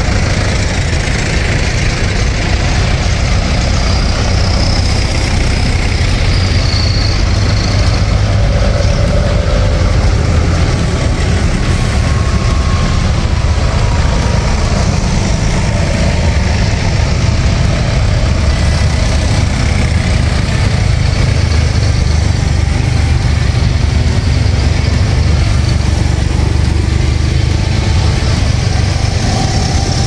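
Tractor engines running in a steady, deep drone.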